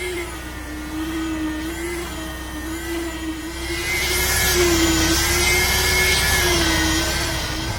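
An electric power tool's motor running steadily with a high hum whose pitch wavers slightly, as under changing load; about halfway in a louder hiss joins it.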